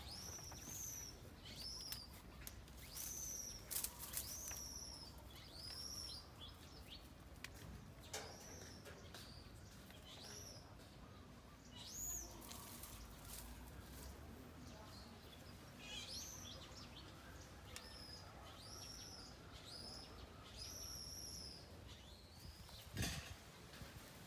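Repeated short, high-pitched animal calls, each rising then falling, coming every second or two. A single sharp knock sounds near the end.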